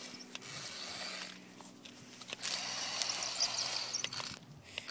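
RC M1A2 Abrams battle tank driving over grass and dirt: its electric drive motors hum steadily while the tracks rattle, in two spells, louder from about halfway through.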